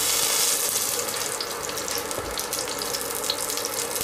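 Hot oil sizzling steadily around whole spices frying in a pan, with a few faint crackles near the end: the tempering stage, with the mustard seeds heating until they splutter.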